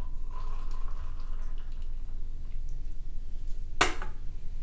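Apple juice making small liquid trickling and dripping sounds, with one sharp click about four seconds in, over a low steady hum.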